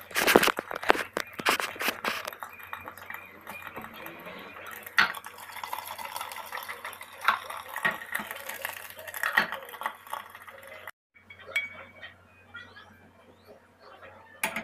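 Kitchen clatter: a frying pan and its lid knocking and clinking on a gas stove, with sharp knocks loudest in the first two seconds. After a brief break, fainter clinks of cutlery on a plate.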